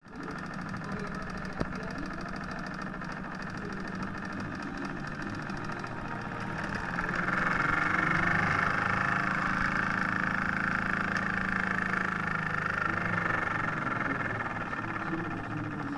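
Toy live-steam engine running with its flywheel spinning, giving a steady hiss with a low mechanical hum underneath, growing louder about seven seconds in. A single sharp click comes early in the run.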